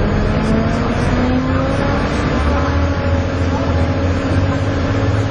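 Volvo B7TL double-decker bus's 7-litre six-cylinder turbodiesel pulling hard, its pitch rising over the first second or so and then holding steady, with the turbo whine that enthusiasts call "hoovering".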